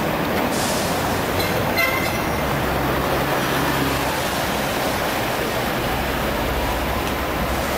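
Street traffic with double-decker trams and a double-decker bus running past: a steady rumble and road noise, with a brief rattle about two seconds in.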